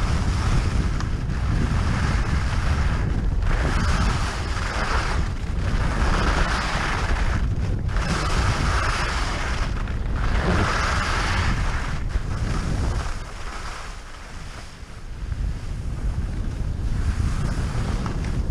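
Wind buffeting a GoPro Hero 5 Session's microphone during a fast ski descent, with skis hissing and scraping on groomed snow in swells every second or two. It eases off for a couple of seconds near the end, then picks up again.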